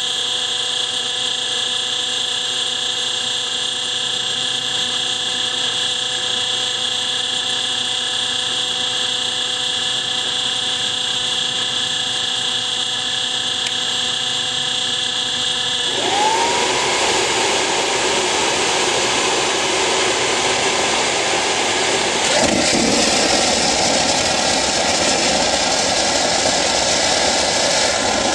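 Leaf blower used as a starter, running with a steady whine as it blows air through a homebuilt turbocharger-based turbojet. A bit over halfway through, the sound switches suddenly to a louder, rougher rush with a whine that rises and then holds, as the engine's propane-fed combustor lights and the turbine spools up.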